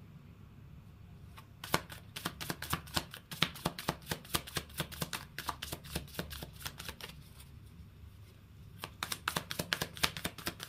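A tarot deck being shuffled by hand: quick clicking of cards against each other in two runs, the first starting about a second and a half in and lasting about six seconds, the second near the end after a short pause.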